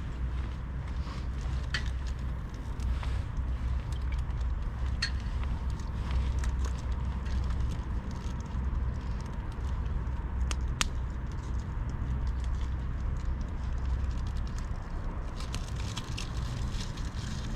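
Steady low rumble of wind on the microphone, with scattered sharp ticks and crackles from a newly lit campfire's kindling starting to catch.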